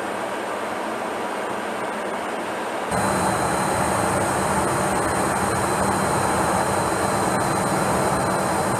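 Steady engine and airflow noise inside an aircraft in flight, heard on board a VC10 K3 tanker. About three seconds in it turns louder, with a thin steady whine added.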